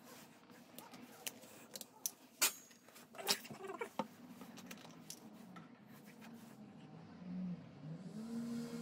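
A few sharp clicks and light knocks of a plastic engine-oil bottle and the filler cap being handled while topping up a motorcycle engine. A faint low hum comes in near the end.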